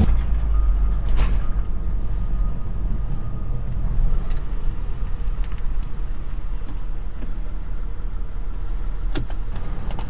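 Vehicle towing a small utility trailer, heard from inside the cabin as it rolls slowly: a steady low engine and road rumble. A few sharp clicks or knocks cut through, once about a second in and again near the end.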